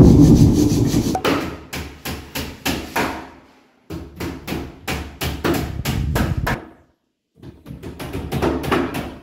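Hammer blows on timber, a quick steady run of about three strikes a second, as in nailing roof rafters. The blows come in three runs, broken twice by short silent gaps.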